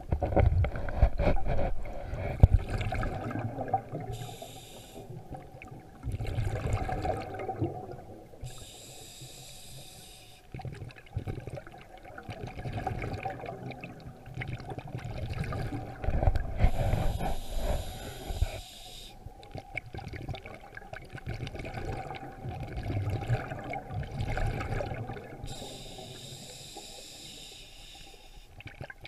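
Scuba diver breathing underwater through a regulator: a hiss on each inhale and a low bubbling rumble as each exhaled breath escapes, about four breaths.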